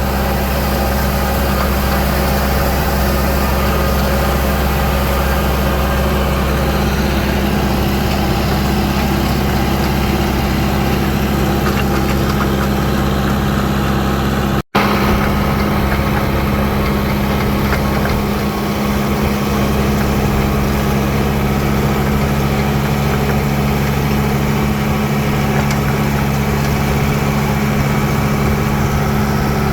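Tractor engine running steadily while pulling a McHale center-delivery rotary rake, an even low hum that does not change pitch. The sound cuts out for an instant about halfway through.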